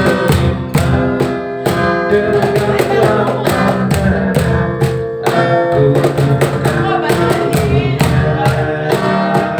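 Acoustic guitar strummed in a steady rhythm, with a singing voice over it: an acoustic cover of an Indonesian pop song.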